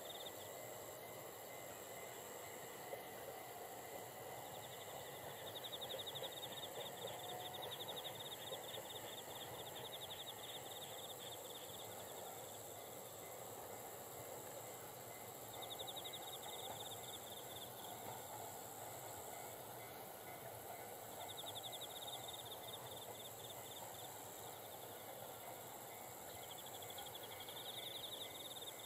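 Crickets chirping in fast pulsed trills that come and go every few seconds, over a steady high insect trill, with the faint rolling of a distant electric train underneath.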